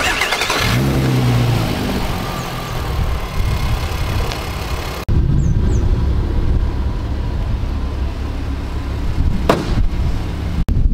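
Volkswagen Golf R32 Mk4's 3.2-litre VR6 engine starting off a jump pack because its battery is flat. It catches right away, flares, then settles to a steady idle.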